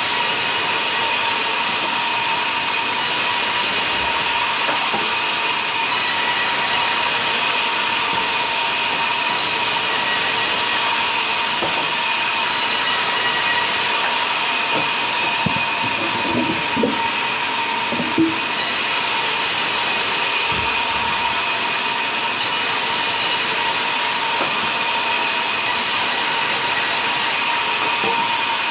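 Large vertical band saw running and ripping a log lengthwise into planks: a loud, steady hiss of the blade cutting with a steady high whine over it. A few short knocks about halfway through.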